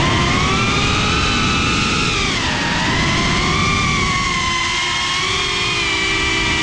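Brushless motors and propellers of a GEPRC CineLog 35 FPV cinewhoop, heard close up from the GoPro mounted on it. They whine over a steady rush of prop wash, the pitch rising and falling with the throttle: it climbs at the start, dips about two seconds in, then rises again and holds fairly steady.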